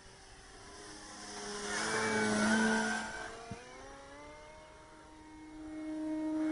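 Electric motor and propeller of a radio-controlled FLEX Innovations Cessna 170 model plane flying past. The whine swells to its loudest about two and a half seconds in and drops in pitch as the plane goes by, then grows louder again near the end as it comes back around.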